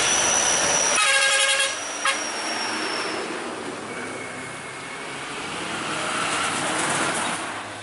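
Heavy diesel tanker trucks driving past, engine and tyre noise. A horn sounds once, briefly, about a second in. The noise fades mid-way and grows again as the next truck approaches near the end.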